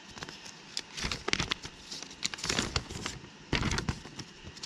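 A paper instruction sheet being unfolded and handled, rustling and crinkling in irregular crackles.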